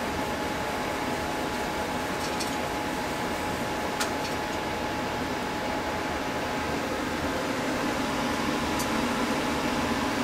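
Steady whirring room noise with a faint, steady whine running through it; a few light ticks, the sharpest about four seconds in.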